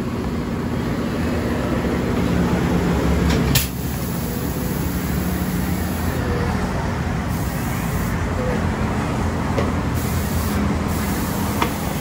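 A steady mechanical drone with hiss, with a single sharp knock about three and a half seconds in.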